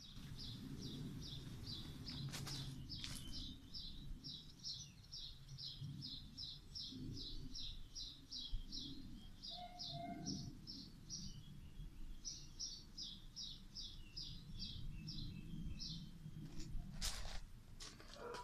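A high-pitched chirp repeated steadily, about three chirps a second, with a short break about halfway through, over a low outdoor rumble. A couple of brief knocks come near the start and again near the end.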